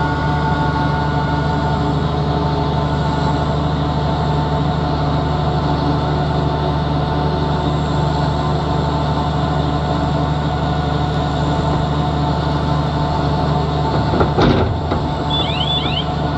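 Steady diesel machinery drone from the tractor-driven vertical feed mixer wagon and the telehandler loading it with silage and hay. A single loud knock comes about two seconds before the end.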